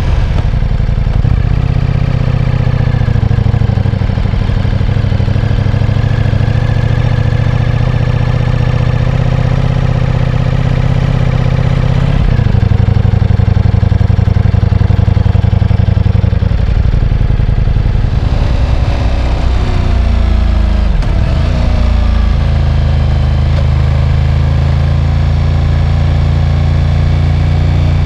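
Ducati Diavel V4's V4 engine running with a steady, loud exhaust note. Its pitch shifts a few times and dips briefly about 21 seconds in, then comes back.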